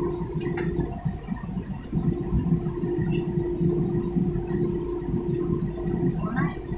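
Jet airliner cabin noise on the ground: a steady low rumble with a steady hum underneath, with a few faint clicks.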